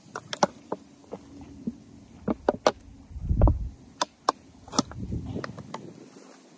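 Clear plastic water bottle with a sports cap being handled: a scattering of sharp, irregular crackling clicks from the thin plastic. There is one low thump about three and a half seconds in.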